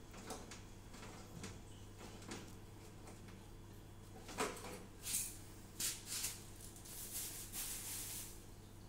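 Screwdriver driving screws into a new gas stove's metal body: faint clicks and scrapes, then a run of louder short scraping, rustling noises in the second half.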